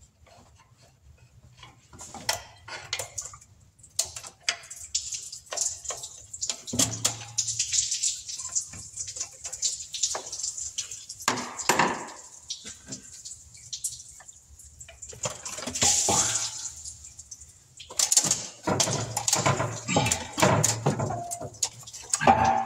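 Irregular metallic clinks, taps and rattles of tools and engine parts being handled during an engine teardown, with busier clusters about two-thirds of the way in and near the end.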